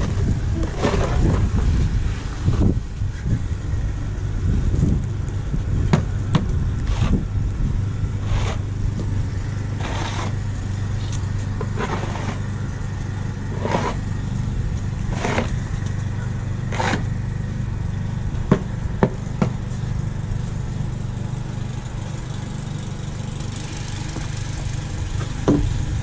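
Snow shovel scraping across a snowy driveway in repeated strokes, about one every second and a half, over a steady low rumble.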